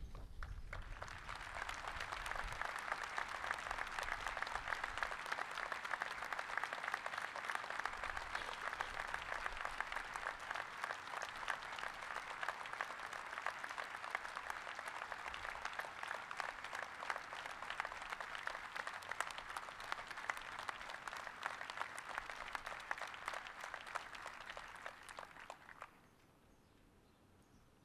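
Crowd applauding, dense steady clapping that dies away about two seconds before the end.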